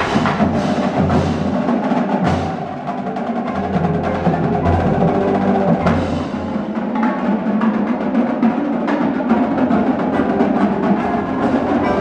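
Percussion ensemble playing: a dense stream of drum and wood-block strikes, with a low drum sound under the first half.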